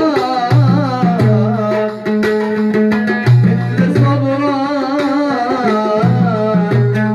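Live music: a man singing a wavering, ornamented melody into a microphone, accompanied by an oud, with a steady percussion beat and held low keyboard bass notes.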